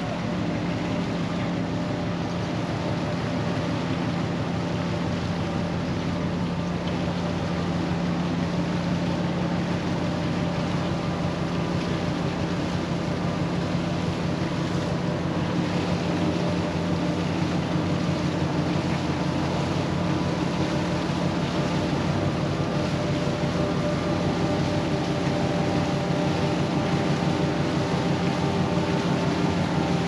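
The Federal Kumano bulk carrier's engine running steadily as the ship passes close by: a low, even pulsing hum that grows slightly louder as the ship draws nearer.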